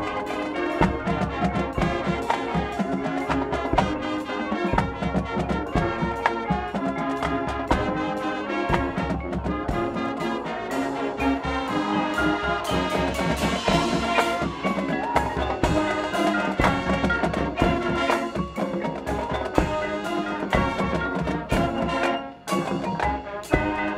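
Marching band playing live: a full brass section over drums and front-ensemble percussion, with steady drum hits driving the beat.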